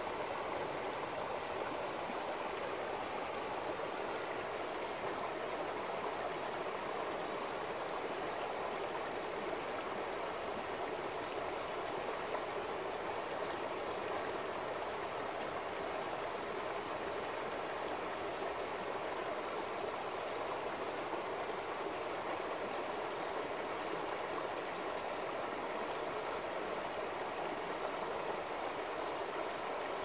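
Shallow, clear mountain river running over stones and gravel riffles: a steady, even rush of flowing water.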